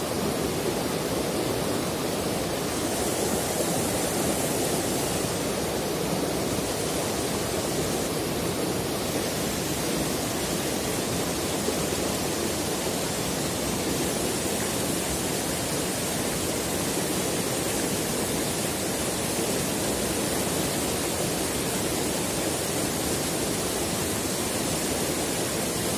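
Shallow rocky river rushing steadily over stones and small rapids.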